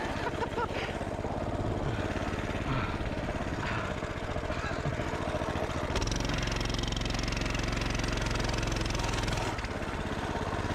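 Pit bike's small single-cylinder engine running as the bike is ridden through deep snow. Its note changes about six seconds in, when the low hum grows stronger, and it dips briefly near the end.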